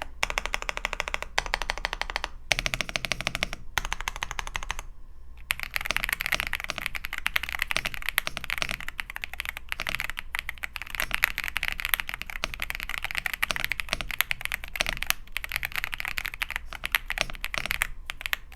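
Fast typing on a WEIKAV WK87 gasket-mount mechanical keyboard with Raw Coconut Latte linear switches and PBT keycaps: a dense run of thocky keystrokes, with a few short pauses in the first five seconds.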